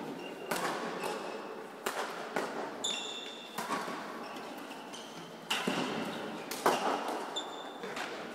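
Badminton doubles rally: sharp racket strikes on the shuttlecock and quick footfalls come every half second to a second, the loudest hit about two-thirds of the way in. Short high squeaks of shoes on the court floor sound between them, and everything echoes in a large hall.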